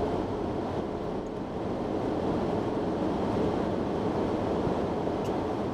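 Steady road and engine noise of a moving car heard from inside the cabin, an even rumble without distinct events.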